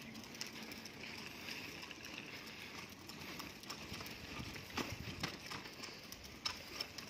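A baby stroller rolling over a concrete sidewalk, its wheels and frame rattling over the slab joints, with the pusher's footsteps. A few sharper clacks come about five seconds in and again near the end.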